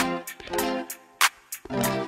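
Background music: chords that ring and fade, with sharp percussive hits.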